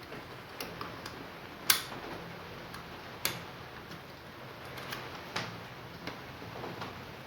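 Scattered clicks and taps of small plastic parts being handled inside an opened electric hand mixer. The sharpest click comes about two seconds in, another about a second and a half later, with lighter ticks between.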